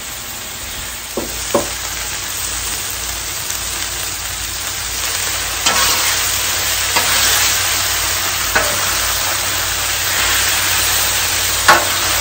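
Sliced squash and zucchini sizzling on a hot Blackstone flat-top griddle while a metal spatula scrapes and clacks against the steel plate as they are stirred. The sizzle grows louder about halfway through.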